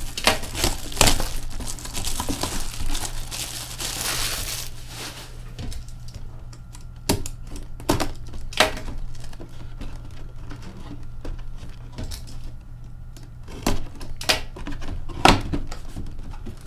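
Plastic shrink-wrap crinkling and tearing as it is stripped off a cardboard box, for a few seconds early on, then sharp clicks, taps and knocks as the box is cut open and handled on a glass counter.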